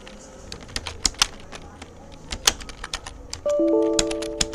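Computer keyboard keys clicking in quick, irregular keystrokes of fast typing. About three and a half seconds in, a chord of several steady tones sounds over the typing and fades after about a second.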